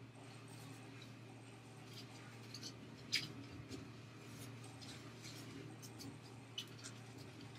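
Quiet room tone with a steady low hum, and faint rustles and small clicks of a fabric scarf being handled and knotted at the neck. The sharpest click comes about three seconds in, with a smaller one later.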